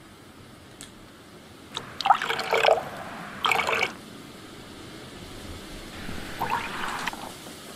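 Liquid poured from a plastic bottle into a stainless-steel mixing bowl of liquid, splashing and gurgling in three short bursts.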